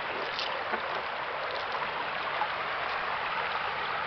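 Flowing river water: a steady rushing sound with faint scattered trickles.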